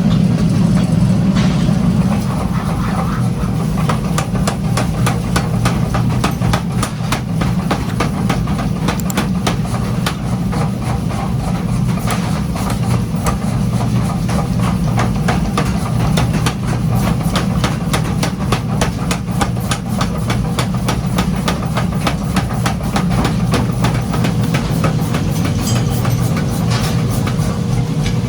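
Workshop machinery running with a steady low hum and rapid, evenly repeating clicking or knocking.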